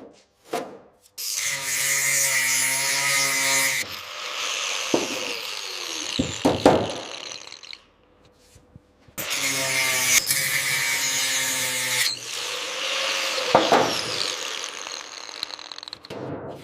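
Handheld power tool run twice for about three seconds each, steady and loud. After each run it winds down with a falling whine, and a few sharp knocks sound during the wind-downs.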